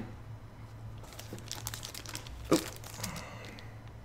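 Paper and plastic packaging rustling and crinkling as collector's-box contents are handled, with one sharper knock about two and a half seconds in.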